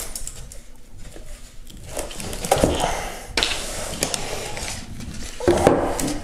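Rustling, scraping and a few clicks as the graphics card's plastic-wrapped radiator is pulled out of a foam packaging insert, in several irregular bursts.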